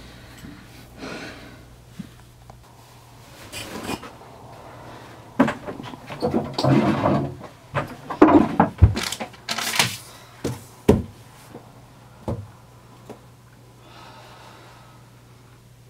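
Handling sounds in a small room: rustling of bedding and clothing, then a string of wooden knocks and thuds as furniture is handled, with a drawer or door moved. Faint pen scratching on paper comes near the end. A steady low hum runs underneath.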